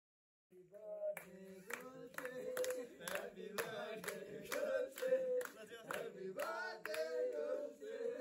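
A group of men singing together and clapping their hands in time, about two claps a second, starting half a second in.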